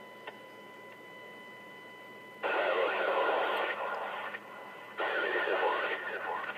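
Police scanner feed: two bursts of radio transmission, heavy with static, that key in and cut off abruptly, the first about two and a half seconds in and the second about five seconds in. A faint steady high whine runs underneath.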